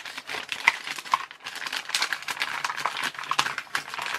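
Irregular crackling and rustling of things being handled: many small clicks and crinkles close to the microphone.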